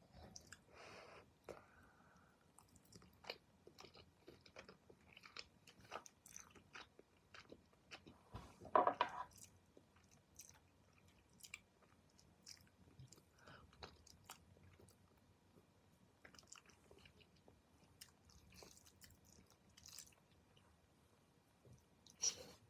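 Close-miked chewing of chewy rice cakes and saucy noodles: soft, wet mouth clicks and smacks scattered throughout, with one louder mouth sound about nine seconds in.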